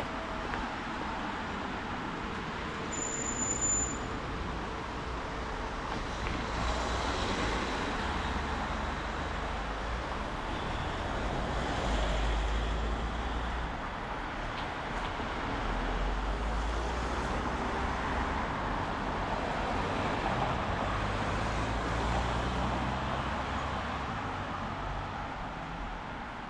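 Road traffic on rain-wet city streets: vehicles pass one after another in several swells of low rumble over a steady hiss of rain and wet tyres.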